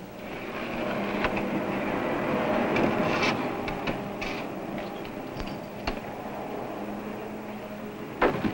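Steady outdoor noise like distant traffic, with scattered clicks and knocks and a cluster of louder knocks near the end.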